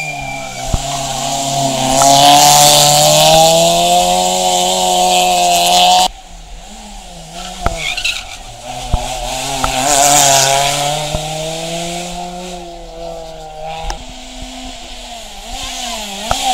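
Three rally cars taking a hairpin one after another, a Citroën Xsara, a Renault Clio, then a Peugeot 205, each engine held at steady high revs through the bend with tyres squealing. The first car is the loudest. The sound cuts suddenly from one car to the next, about six seconds in and again near the end.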